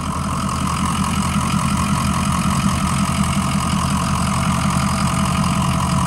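Ford E-450 bus engine idling, steady and smooth, heard close over the open engine bay. It is warmed up after running at idle for over half an hour and sounds healthy.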